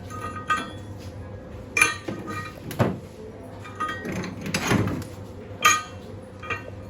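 Steel workpieces and tools clanking and clinking as they are handled: about six separate ringing metal knocks, spaced a second or so apart, over a steady low hum.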